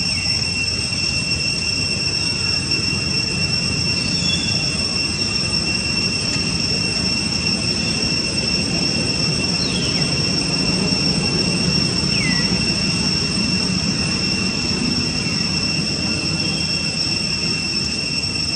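Steady outdoor ambience: a constant high-pitched drone held on one pitch over a low, even rumble. A few faint, brief falling squeaks sound through it, two of them close together a little past the middle.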